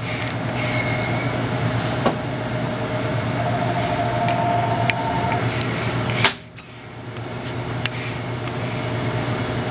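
Steady hum of refrigerated glass-door drink coolers, with light clicks and knocks as a cooler door is opened and a glass bottle is taken out. A sharp click comes about six seconds in, after which the sound drops suddenly.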